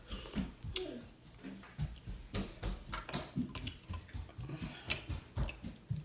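Close-up eating sounds: chewing and lip-smacking on seafood boil, with irregular clicks and crackles as crab shell is picked apart by hand.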